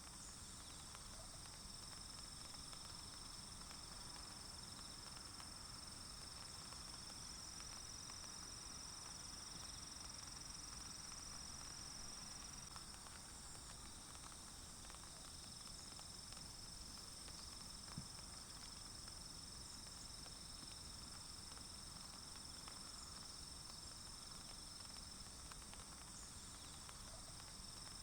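Faint forest ambience of insects trilling steadily in two high-pitched bands, with a single sharp tick about 18 seconds in.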